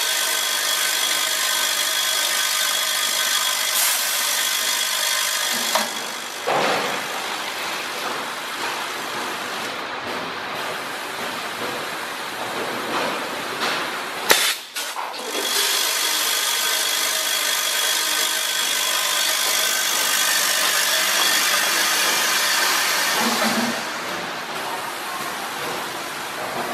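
Linear weigher filling machine running: a steady mechanical noise with constant whining tones. The level drops about six seconds in, comes back up after a sharp click at about fourteen seconds, and drops again near the end.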